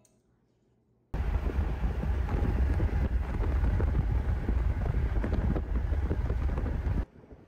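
Strong wind buffeting the phone's microphone over the low rumble of a moving vehicle. It starts suddenly about a second in and cuts off abruptly near the end.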